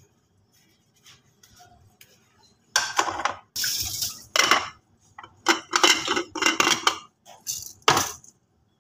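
Whole spices tipped from a ceramic plate into a glass grinder jar, clattering and rattling against the glass in several bursts, with a sharp knock near the end as the jar is handled.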